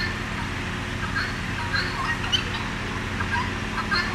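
Domestic turkeys and other fowl calling, short scattered calls with no steady rhythm, over a steady low hum.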